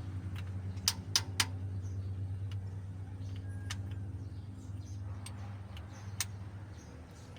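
Sharp metal clicks and taps as a camshaft bearing cap is set onto the cylinder head: three quick ones about a second in, then a few scattered ones, over a steady low hum.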